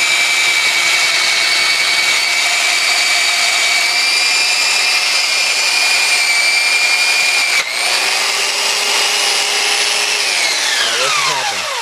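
Belt sander running at speed with a piece of metal held against the belt, grinding it and throwing sparks: a steady high whine over a grinding hiss. Near the end the motor is cut and the whine falls in pitch as the belt spins down.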